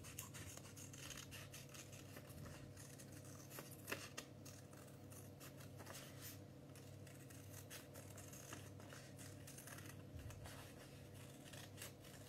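Faint, irregular snipping of small scissors cutting round a shape in folded paper, with a couple of slightly louder snips about four seconds in.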